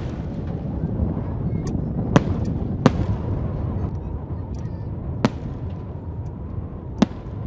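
Fireworks display: aerial shells bursting with sharp bangs at irregular intervals, four loud ones and a few fainter pops, over a steady low rumble.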